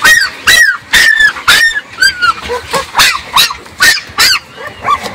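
Young puppies yelping over and over, about two short high cries a second, each one rising and then falling in pitch.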